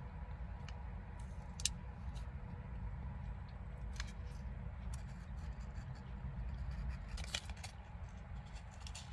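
Eating a peanut butter cup: scattered small clicks and crinkles of chewing and handling it, over a steady low hum.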